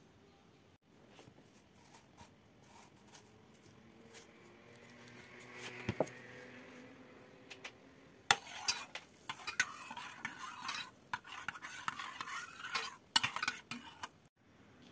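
A metal spoon stirring salt into water in an enamel pot, scraping and clinking against the pot's sides for about six seconds, starting around eight seconds in. Before that there is a single sharp clink about six seconds in.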